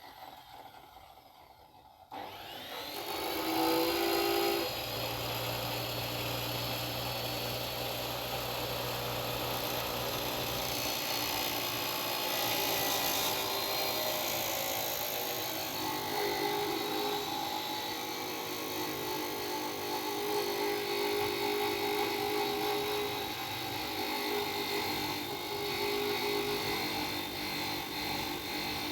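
Electric drill boring into a concrete wall: after a brief pause the motor starts about two seconds in, winds up and then runs steadily under load as the bit grinds into the concrete.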